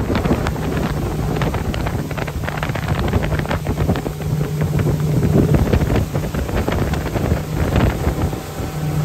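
Motorboat underway: wind buffeting the microphone in gusts over the steady low drone of the boat's engine and the rush of water from its wake.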